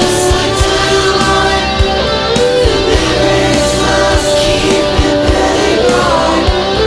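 Melodic hard rock song: electric guitars and a steady drum beat under a melodic lead line bending in pitch.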